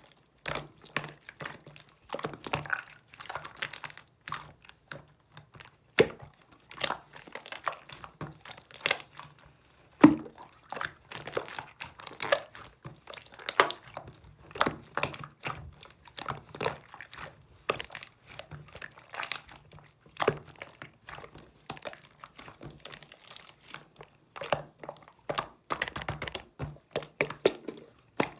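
Close handling sounds: irregular crinkling and crackling with many sharp clicks and taps, and a louder knock about ten seconds in.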